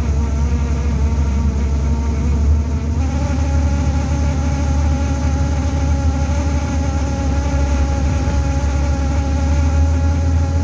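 Steady buzzing vibration inside a TTC Orion VII bus: a loud low hum with a set of pitched tones above it that jump to a new pitch about three seconds in. The uploader takes the buzz for probably coming from the heater.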